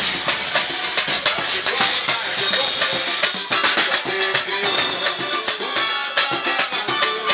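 Music with drums and shaken percussion playing at a steady beat.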